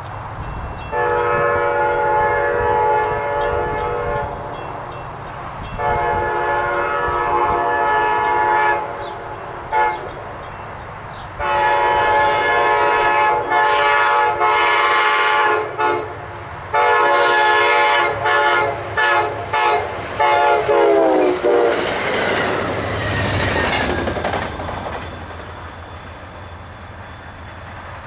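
Locomotive multi-chime air horn sounding a run of blasts as a train approaches: two long blasts, a brief one, a long one, then a series of shorter blasts. The horn's pitch slides down as the locomotive passes, followed by the rumble and clatter of the passing train, which fades.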